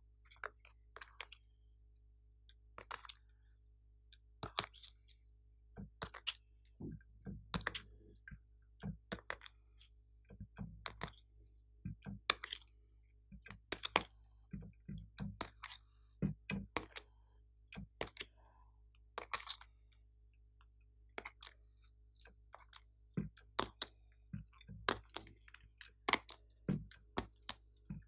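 Soft clay pieces being pressed out of a flexible plastic mould and dropped into a glass dish: irregular clicks, taps and crackles as the mould flexes and the pieces come free.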